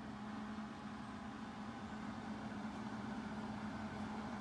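A steady machine hum at one low pitch, with a faint even hiss above it and no change in speed or strength.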